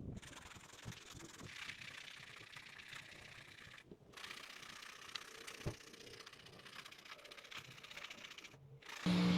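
Faint scraping and small clicks and taps of hand work on a plastic car brake light lens, broken by a few abrupt cuts. Music comes in near the end.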